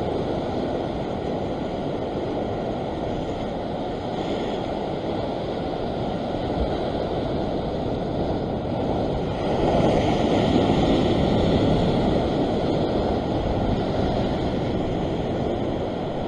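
Ocean surf washing against a rock ledge, with wind on the microphone. A bigger wave surges in about ten seconds in and stays louder for a couple of seconds before easing.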